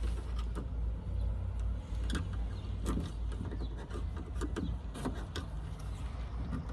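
Small screwdriver clicking and scraping against plastic and metal parts inside a car door while prying at a clip, in scattered irregular taps over a steady low rumble.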